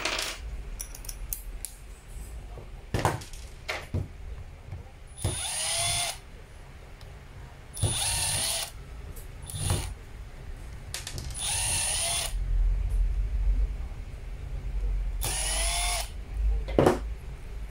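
Milwaukee Fuel brushless cordless drill/driver backing out the screws of a drill housing in five short bursts, each with a whine that rises as the motor spins up. Sharp clicks of the tools being handled come between the bursts.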